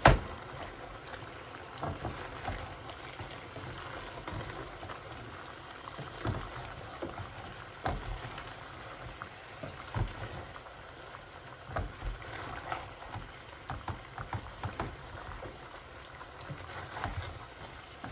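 Wooden spoon stirring chicken pieces, onions and curry spices in a large aluminium pot, scraping and turning the meat with irregular knocks of the spoon against the pot.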